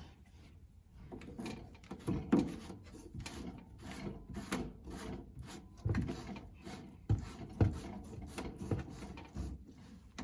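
Irregular knocks, clunks and rubbing of plumbing parts being handled and worked by hand on a toilet flush cone, with a few sharper knocks about two seconds in and again between six and eight seconds in.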